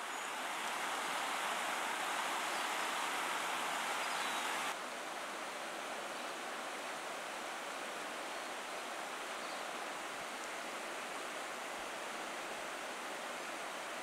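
Stream water running over a stony bed, a steady rush; it drops a little in level after about five seconds, then carries on evenly.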